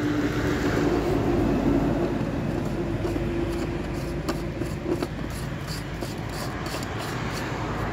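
Steady street and traffic noise with a held hum that stops about five seconds in. Light clicks come in the second half as the plastic oil filter housing cap is turned down by hand onto its housing.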